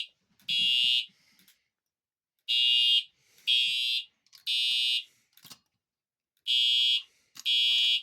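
Simplex TrueAlert fire alarm horn sounding the temporal-3 evacuation pattern: three short, even blasts about a second apart, then a pause of about a second and a half, repeating.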